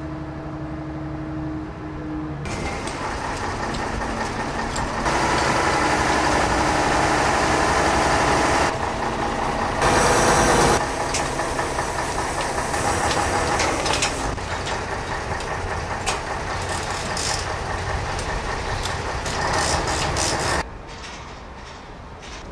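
Heavy machinery engines running, with scattered metallic knocks and clanks; the sound changes abruptly several times as the scene cuts.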